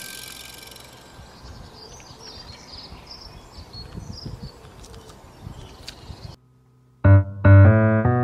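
Faint high peeping from a quail chick over a low rustling hiss. After a brief silence, a piano-like keyboard tune starts loudly about seven seconds in.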